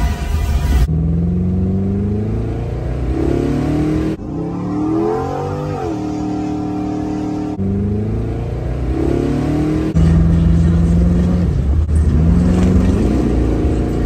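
LS-swapped classic Chevy's V8 engine revving and accelerating, its pitch climbing and dropping several times, with abrupt changes every few seconds.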